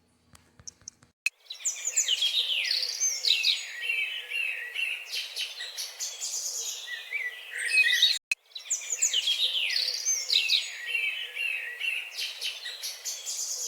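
Birds chirping and singing, many quick calls overlapping, starting about a second and a half in, with a brief break a little after eight seconds.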